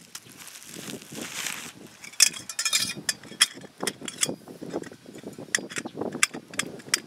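Metal tripod-grill leg tubes, held together by an elastic shock cord, clinking and knocking as their sections are pulled out and slotted end to end: an irregular run of sharp clicks.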